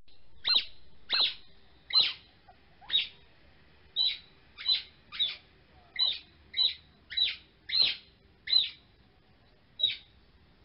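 A bird calling over and over: about thirteen short, high chirps, each sweeping quickly downward, roughly one or two a second at slightly uneven intervals.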